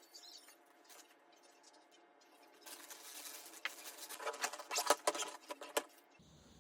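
Rustling, scratching and light irregular clicks, like something being handled, busier and louder in the second half.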